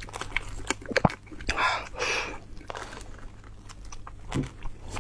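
Close-miked chewing and mouth clicks from someone eating soft beef bone marrow, with a longer noisy stretch about two seconds in.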